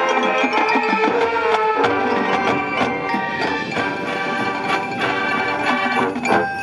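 High school marching band playing, with held chords from the winds and sharp strikes from the front-ensemble mallet percussion throughout.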